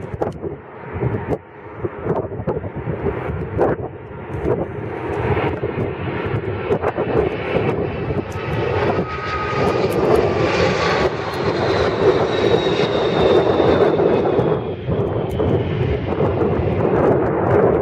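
Four Rolls-Royce RB211 turbofans of a Boeing 747-400 on final approach, swelling loud as the jet passes low overhead. A high whine slides down in pitch as it goes by, and the engine noise stays loud as it flies on over the runway.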